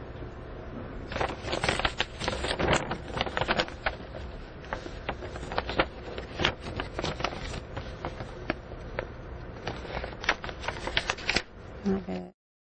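A quick, irregular run of sharp clicks and taps over a low steady hum, stopping abruptly near the end.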